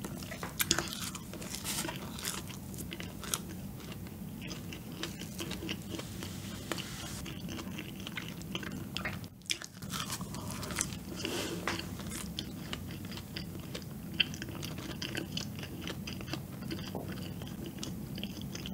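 Close-miked chewing and biting of a soft fried donut with a sugar coating and matcha cream filling: many small wet mouth clicks and smacks, with a short pause about nine seconds in.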